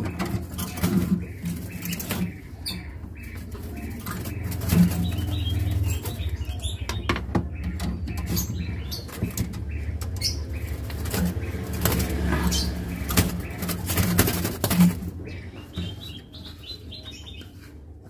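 Black-naped oriole fluttering its wings in a wire cage as hands work at the cage's feed door, with repeated clicks and knocks from the cage fittings and a plastic feed cup.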